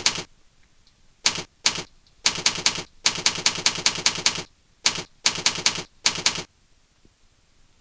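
Typing on a keyboard: quick runs of sharp keystroke clicks with short pauses between them, stopping about six and a half seconds in.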